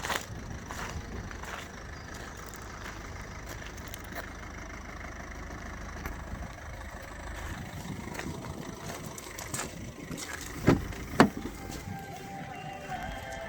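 Ford Transit Connect van's engine running at idle, with two sharp knocks about half a second apart near the end.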